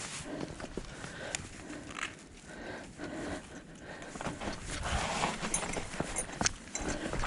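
Mountain bike rattling over a rough trail: irregular clicks and knocks over a rushing noise that grows louder in the second half.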